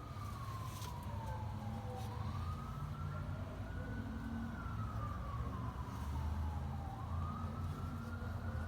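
Emergency-vehicle siren wailing, its pitch rising and falling slowly, about five seconds per cycle, over a steady low rumble.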